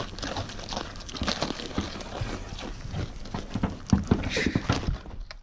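Goats nuzzling and nibbling at a treat through gaps in a wooden fence, close to the microphone: a jumble of rustling, scraping and soft knocks, with a few sharper knocks about four seconds in.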